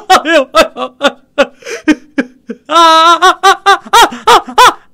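A man's voice sobbing and crying out in short, rhythmic gasping bursts, with a fast run of cries in the second half.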